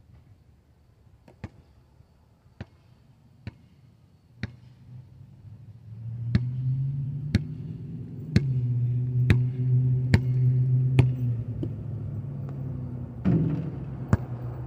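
Basketball bouncing on asphalt, sharp single bounces that start sparse and settle into a steady dribble of about one a second. A vehicle engine hum rises underneath through the middle and fades near the end.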